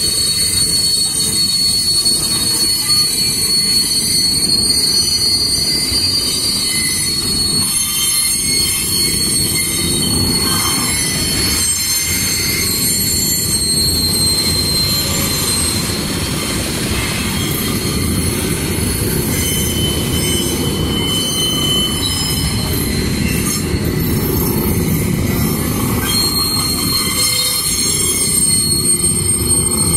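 A train of passenger coaches and covered hopper wagons passing close by: steel wheels rumbling on the rails under a steady high-pitched metal squeal.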